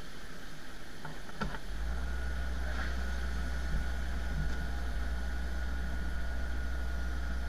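A steady low engine rumble sets in about a second and a half in, right after a short knock, with a thin steady whine above it.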